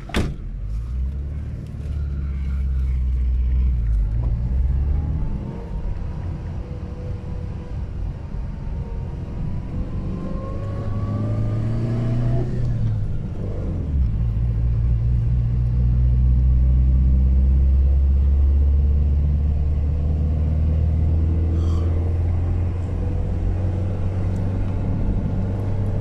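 Car engine and road noise heard from inside the cabin while driving: a steady low drone, with the engine note climbing for several seconds and dropping off around the middle, as at a gear change. A sharp knock right at the start.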